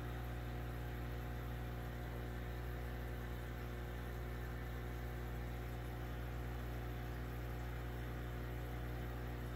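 Steady electric hum of aquarium filtration equipment, a low even drone with a faint buzz that does not change.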